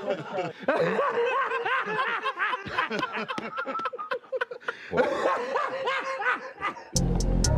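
A man laughing hard in repeated cackles that rise and fall in pitch, with others chuckling along. Near the end music with a beat cuts in sharply.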